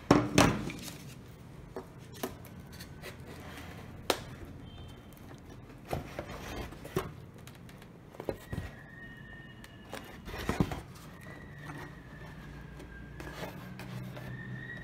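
Handling noise from Depron foam-board airframe parts: irregular knocks, taps and rubs as the fuselage is moved and the canopy piece is pressed down along it. The loudest knocks come in a cluster at the start and again about two thirds of the way through.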